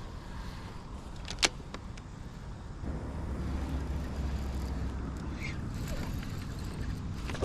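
Kayak drifting on the river: a steady low rumble of water and wind on the camera microphone that grows stronger about three seconds in, with one sharp knock on the hull about a second and a half in.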